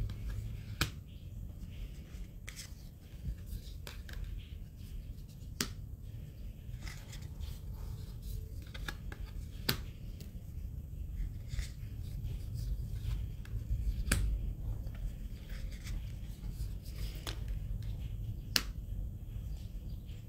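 Oracle cards being handled one at a time: card stock sliding and rubbing, with a sharp snap about every four to five seconds as each card comes off the stack, over a low steady rumble.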